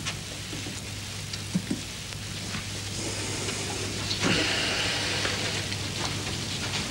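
Steady hiss with a low mains hum, typical of an old tape recording of a TV broadcast, with a few faint knocks; the hiss grows brighter about four seconds in.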